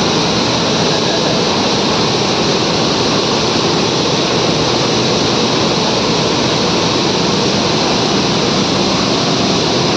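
Loud, steady noise of flour-mill machinery running, an even rushing sound with no rhythm or distinct tone.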